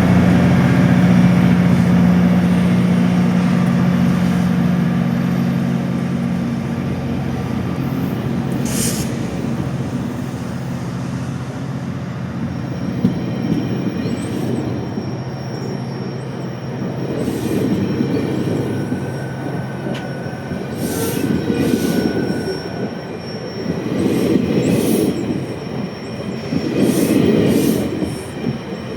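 GO Transit MP40PH diesel locomotive pulling its train out of the station. The engine drone fades over the first several seconds, then passenger coaches roll past with a rumble, repeated clacks and intermittent high wheel squeal.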